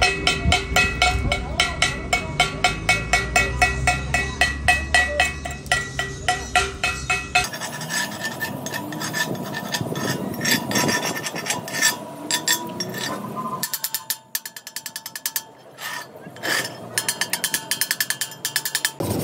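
Steel chipping hammer knocking slag off stick-weld beads on a steel plate: quick, even blows about four a second, each leaving the plate ringing. About halfway through they give way to irregular taps and scraping, and near the end a fast run of strokes follows.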